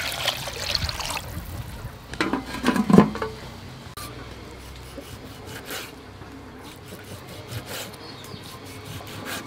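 Water poured from a vessel into a large metal soup pot, splashing for about a second, followed about two seconds in by a few louder knocks. Then a knife slices raw beef on a wooden cutting board, with scattered short taps of the blade on the wood.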